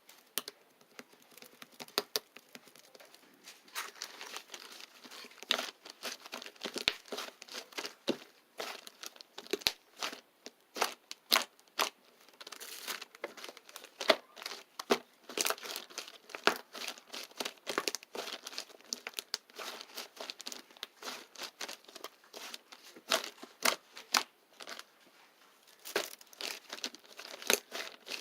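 Crinkling and crackling of some thin material being handled, a dense run of short, irregular crackles with a few louder snaps.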